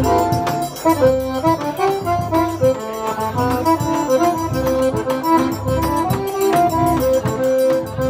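Live button accordion playing a lively melody, backed by a steady beat on a shoulder-strapped bass drum.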